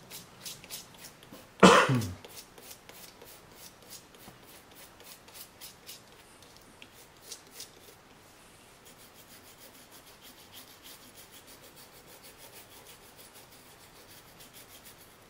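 Small brush scrubbing an iPhone 4S logic board wet with cleaning solution in rapid, light strokes, cleaning off water-damage corrosion. A single loud knock comes about two seconds in, and the brushing grows fainter after about eight seconds.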